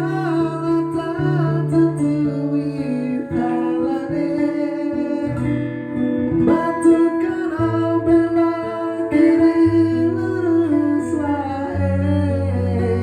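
Music from a Javanese song: plucked acoustic guitar over held, stepping bass notes, with a gliding melodic line above and no sung words.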